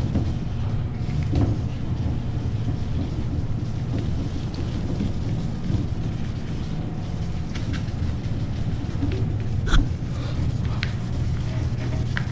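Hand wet sanding of a black motorcycle tank's clear coat with 2000-grit paper and water, with scattered light knocks and a sharper one about ten seconds in, over a steady low hum.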